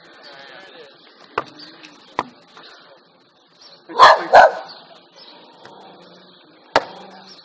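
Beach volleyball being struck: a few sharp hand slaps on the ball, the loudest a serve near the end. About four seconds in come two loud, short calls in quick succession close by.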